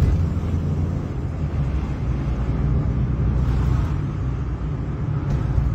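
Car engine running and road noise from inside a moving car: a steady low rumble.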